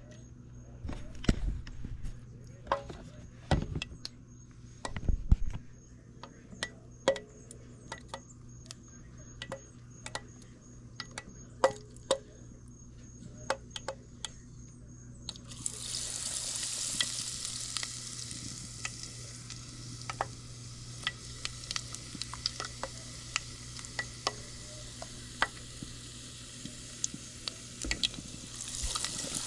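Scattered clicks and knocks of kitchen utensils and dishes being handled. About halfway through, a sudden loud sizzle starts as the crappie goes into hot peanut oil, and it keeps frying with a steady hiss and small pops.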